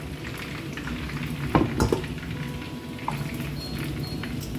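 Stainless steel wok heating on an induction hob, with a steady low hum and a faint sizzle. Two sharp knocks of cookware being handled sound about a second and a half in.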